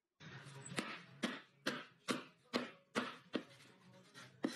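Cleaver chopping through hair onto a wooden board: a run of short, sharp chops about two a second, with a longer pause before the last one near the end.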